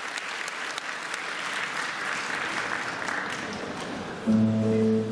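Audience applauding, dying away over a few seconds. Near the end a loud, steady low pitched tone starts suddenly and holds for about a second.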